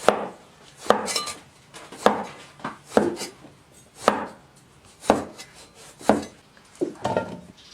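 Kitchen knife cutting peeled eggplant into roll-cut chunks on a cutting board: single sharp knife strikes on the board about once a second.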